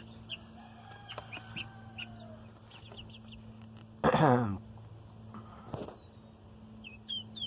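Baby chicks peeping, many short high chirps scattered throughout, with one louder short sound falling in pitch about four seconds in.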